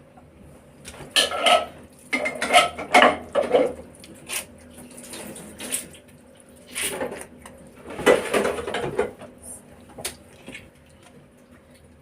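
Spoon and cookware clinking and scraping in irregular bursts, with a lull in the middle.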